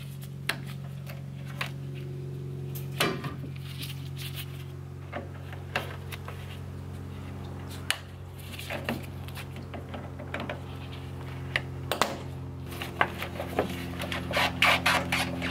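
Pliers and hands working the hose clamp and upper radiator hose off the radiator: scattered small clicks and metallic clinks, coming more thickly near the end, over a steady low hum.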